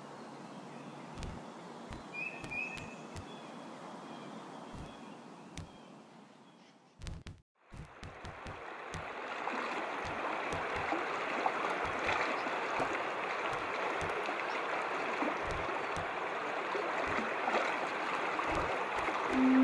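Running water, a stream trickling and gurgling, with scattered clicks and one short high chirp about two seconds in. It fades out briefly around the middle, then comes back louder and steady, and a low held tone enters near the end.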